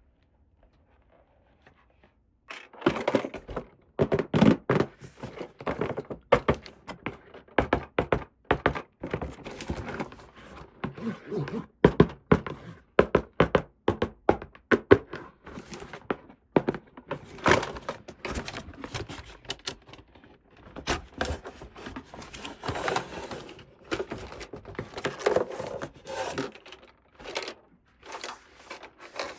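Small plastic toy parts and packaging being handled close to the microphone: a long run of irregular clicks, taps and light knocks with rustling between them, starting a couple of seconds in.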